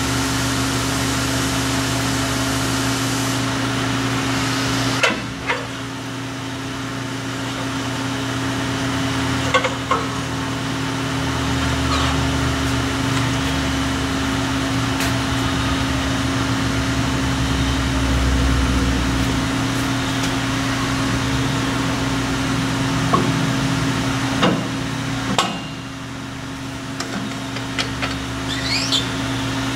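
Steady machinery hum with a few sharp metallic clinks and knocks as circular saw blades and spacers are handled and slid along a gang rip saw's arbor shaft during a blade change.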